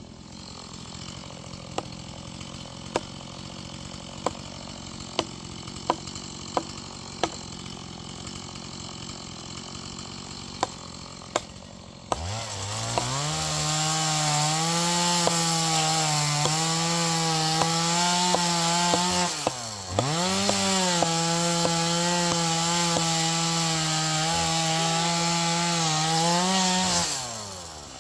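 Stihl chainsaw idling with a string of sharp clicks. About halfway through it is throttled up to high revs, sawing into wood, with one brief dip in revs, then eases off near the end.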